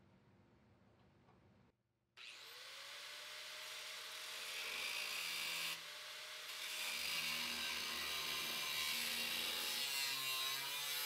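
Angle grinder spinning up about two seconds in and working on sheet steel, with a loud whine that climbs as it gets up to speed and then wavers and dips as the wheel bites under load.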